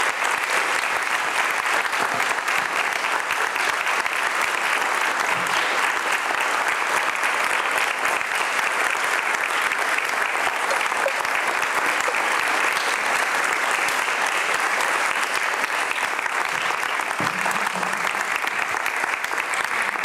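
Audience applauding steadily: many hands clapping at once, for about twenty seconds.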